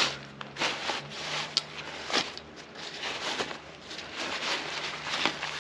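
A bag or pouch being opened and rummaged through: a string of short, scratchy rustles and handling noises, over a faint steady low hum.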